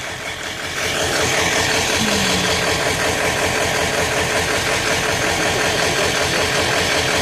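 A truck engine idling close by, a steady even low chug.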